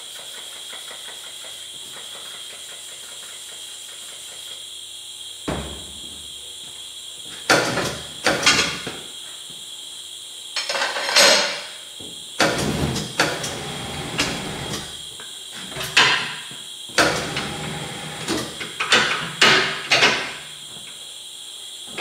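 Knocks, clunks and short noisy bursts from a rim-clamp tire changer and the skid steer tire being worked on it, over a steady hum. The knocks start about five seconds in and come irregularly, in clusters, until the end.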